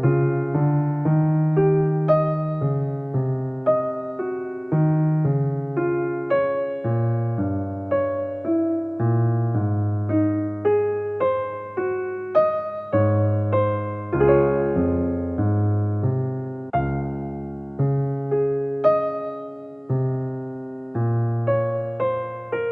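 Soft background music played on electric piano: a slow run of sustained notes and chords, each struck and fading away.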